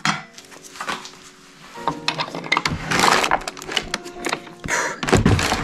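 A wooden drawer in an old cabinet is pulled open with a long scrape, among clicks and knocks of objects being handled, over faint background music.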